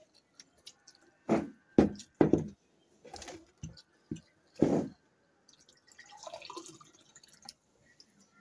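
Several short, loud knocks and clunks on the table, then water poured from a jug into a drinking glass for about two seconds, starting about five and a half seconds in.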